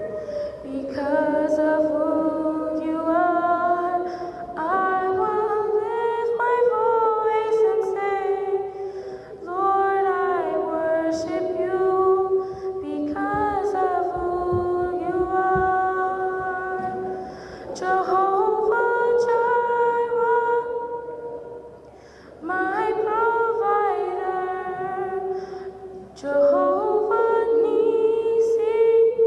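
A young girl singing a solo song into a microphone, in long held phrases with short breaks between them.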